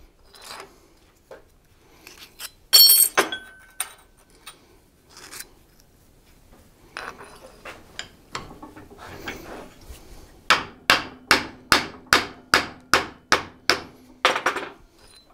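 Hammer striking a small steel hinge piece clamped in a bench vise. First come scattered clinks of metal being handled, with one ringing clink about three seconds in. Then, over the last few seconds, comes a quick, even run of about a dozen blows, roughly three a second.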